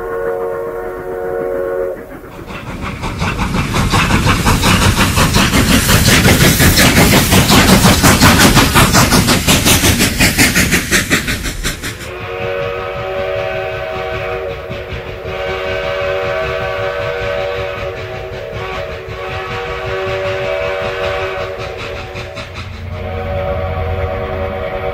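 Steam train sounds: a chord-like steam whistle, then about ten seconds of loud, fast chuffing and clatter. After a sudden cut at about 12 s comes a long chime whistle sounding in repeated blasts.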